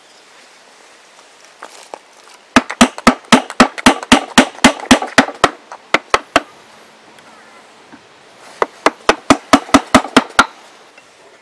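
Mallet striking a chisel as it cuts a notch into dried ash wood: two runs of quick, sharp taps at about four a second, the first about fifteen strikes long, the second, after a pause of about two seconds, about ten.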